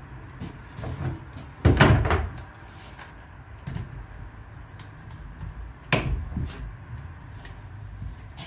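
Clamps and a metal spirit level being handled and set on a plywood workbench to grip a strip of lead: a loud clattering knock about two seconds in and a single sharp knock near six seconds, with quieter fumbling between.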